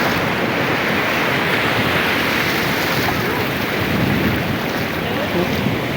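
Sea surf washing onto a beach in a steady rush, with wind on the microphone.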